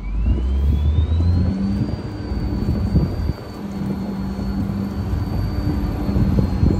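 A vehicle running: a low rumble with a thin whine that rises in pitch over the first two seconds, then holds steady.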